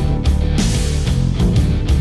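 Rock music with electric guitar and a steady driving drum beat.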